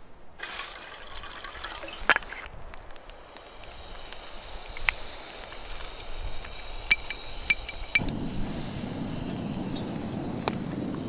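Water trickling and dripping, with single sharp drops landing every second or two. A low steady rush sets in about eight seconds in.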